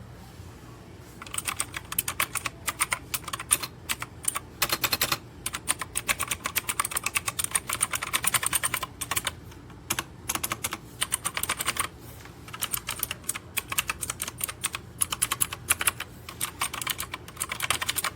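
Fast typing on a MageGee mechanical keyboard with blue switches: a dense run of sharp key clicks that starts about a second in and stops briefly twice along the way.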